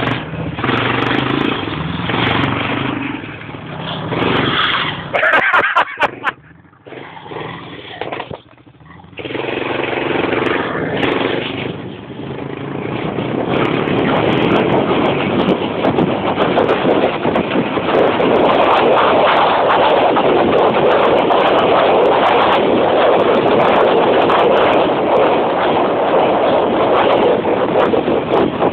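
Motor vehicle driving across a field of long grass, its engine running. From about twelve seconds in, a loud, steady rushing noise builds and holds to the end, with a brief drop in sound a few seconds before it.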